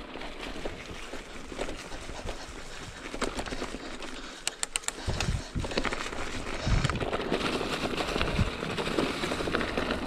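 Mountain bike riding downhill on a forest trail, its tyres rolling over fallen leaves and dirt, with many small clicks and knocks from the bike. It gets louder from about five seconds in, with low thumps.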